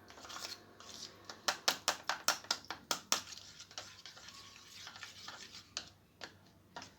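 A spoon stirring a garlic, lemon, honey and hot water remedy, clinking against its container in quick runs of about five strikes a second, dying down after about three seconds.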